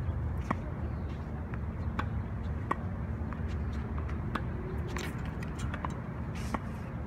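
Tennis balls struck with a racket and bouncing on a hard court: sharp pops every second or two, the loudest about half a second in, near the middle and near the end, over a steady low rumble.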